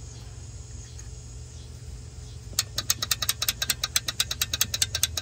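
Starter solenoid on an old Marmon cab-over semi chattering: a rapid, even clicking of about nine clicks a second that starts a couple of seconds in and lasts about three seconds, over a steady low hum. This is the sign of too little current reaching the starter; the owner suspects a bad ground.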